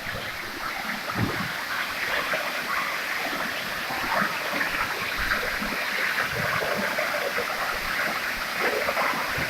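Waterfall rushing steadily, a constant hiss of falling and splashing water.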